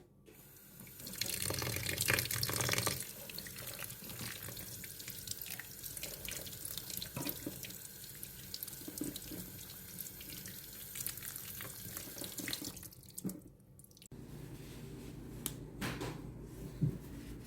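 Water from a tap running into a sink and splashing, with small knocks and splashes of things being handled under it. The flow is strongest in the first couple of seconds, then runs steadier, and stops about 14 seconds in.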